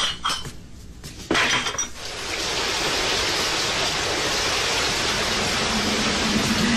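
Ceramic mugs clink together a few times, then from about two seconds in a steady hiss of heavy rain sets in and holds.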